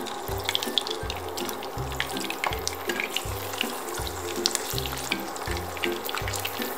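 Whole mackerel frying in hot oil in a pan: a steady sizzle with many small crackling spits.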